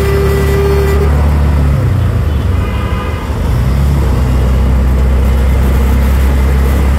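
Small engine of a CNG auto-rickshaw running steadily, heard from inside the open caged cabin, with traffic noise around it; the engine note drops briefly about two to three seconds in. A steady single tone, like a horn, sounds at the start and stops about a second in.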